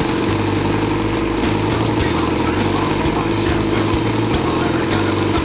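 Harley-Davidson V-twin motorcycle engine running at a steady idle, with a few faint clicks over it.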